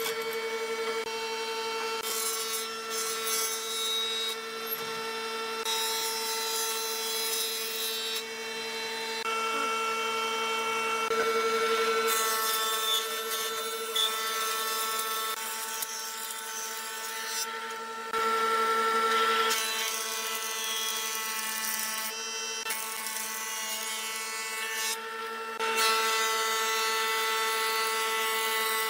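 Electric power tool running at a steady speed with a constant whine while working wood, with stretches of rough grinding or sanding noise that start and stop abruptly several times.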